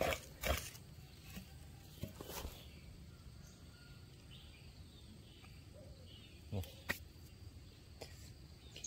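A hoe blade chopping into loose soil, twice in the first few seconds, then faint scraping of earth with two short knocks near the seven-second mark.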